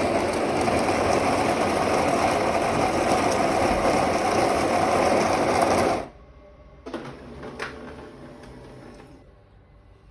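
Automatic espresso machine's built-in grinder running steadily, then stopping abruptly about six seconds in, followed by a few quieter mechanical clicks and knocks.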